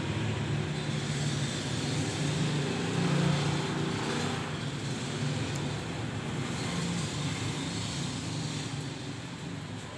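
Dog growling: a low, continuous snarling growl, loudest a few seconds in and easing off near the end, as a warning over food.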